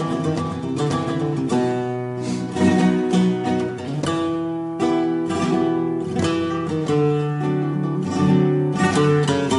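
Solo flamenco guitar playing a tientos, with strummed chords broken up by single-note passages.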